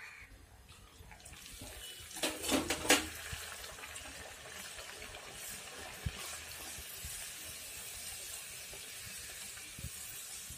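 Puri frying in hot oil in an iron kadai: steady sizzling and bubbling as the dough puffs up. About two seconds in comes a short cluster of sharp clinks from the metal slotted spoon against the pan, the loudest part.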